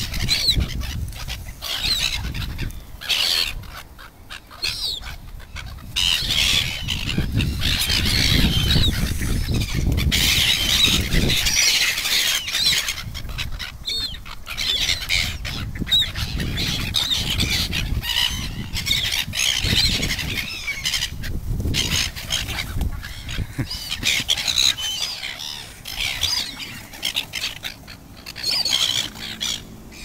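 A flock of gulls squawking and calling over one another, many short overlapping calls with no let-up, as they crowd in to be fed.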